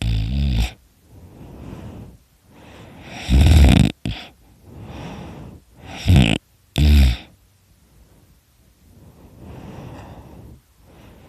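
A man snoring extremely loudly in his sleep. There is a long snore at the start, another about three and a half seconds in, and two short snorts close together around six to seven seconds in, with quieter breaths between them and a softer breath near the end.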